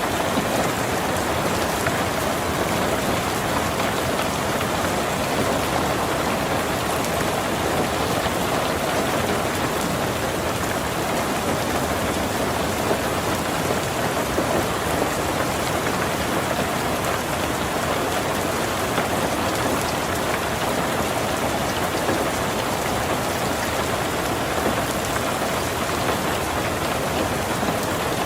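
Heavy rain drumming on a tin roof, a dense, steady patter of drops with no let-up.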